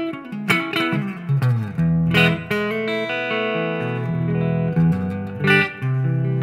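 Epiphone Les Paul Standard Pro electric guitar played clean through a Marshall MG30FX combo amp with a little spring reverb: picked chords and single notes, each left to ring out.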